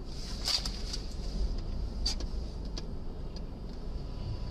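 A car on the road, heard through a dashcam: a steady low rumble, with a few faint, irregular ticks.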